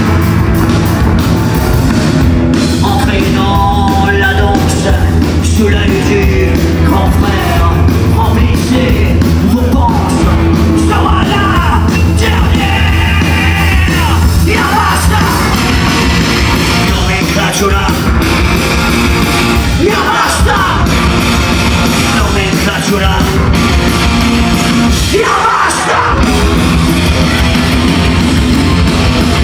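Rock band playing live, loud and steady: electric guitar and drums with a singer yelling the vocal over them.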